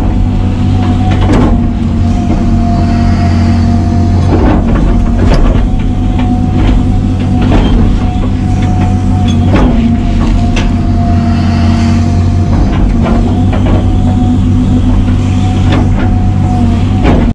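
Hitachi 350 excavator heard from inside its cab: the diesel engine runs steadily under digging load, with a steady hydraulic whine that comes and goes as the controls are worked, and repeated clunks of the bucket digging and scraping in the trench.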